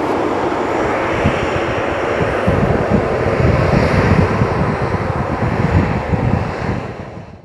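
Twin-engine jet airliner, a Boeing 737, rolling fast along the runway: steady jet engine noise over a deep rumble, swelling slightly in the middle and fading away near the end.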